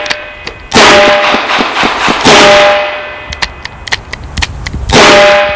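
Three revolver shots from a .38 Special Chiappa Rhino, the first two about a second and a half apart and the third some two and a half seconds later, each followed by a brief metallic ringing. Between the second and third shots come several light clicks, where the revolver misfired on what the range officer calls a soft primer strike.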